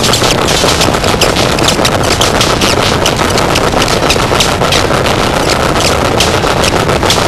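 Harsh noise music: a loud, unbroken wall of distorted static filling the whole range, with rapid crackling snaps in the upper range.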